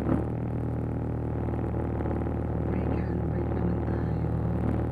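Car engine idling steadily, heard from inside the cabin, with a single sharp click right at the start.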